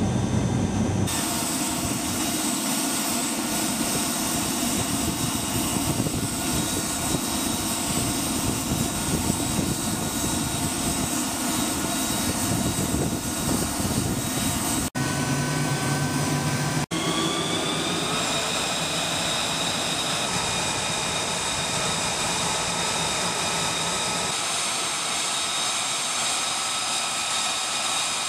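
F-35B Lightning II's F135 turbofan running on the ground: a steady jet roar with a high turbine whine. After a brief break about two-thirds through, the whine rises a little and then holds steady.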